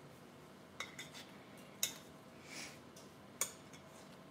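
A metal utensil clinking and scraping against metal bakeware as baked muffins are prised out of the pan: a few short, light clicks spread out, with a softer scrape between them.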